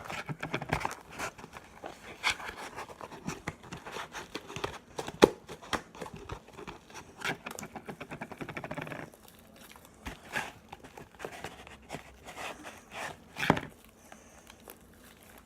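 Hands kneading and pulling fluffy slime made of glue, shaving cream and Tide out of a bowl: sticky squishing with many irregular small clicks and rustles, busier in the first half and sparser after about nine seconds.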